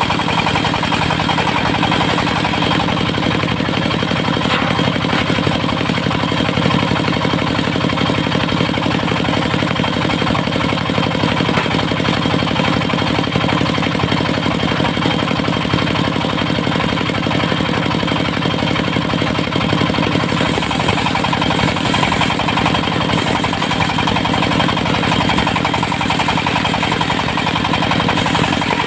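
Diesel-driven portable circular sawmill running steadily, its spinning blade sawing through a teak log, with a constant high whine over the engine's drone.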